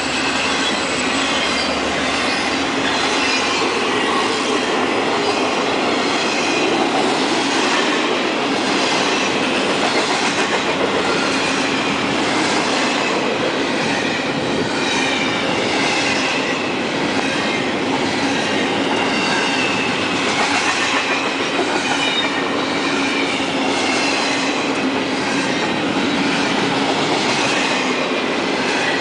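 Double-stack intermodal container cars rolling past close by: a steady rush of steel wheels on rail with repeated clickety-clack over the rail joints and a faint high wheel squeal at times.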